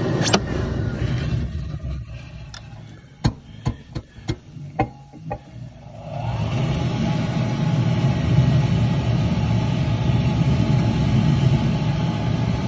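An outdoor wood furnace's draft fan and fire running with a steady low rush. It drops away for a few seconds, during which several sharp metal clicks and knocks sound, and the steady rush comes back about six seconds in.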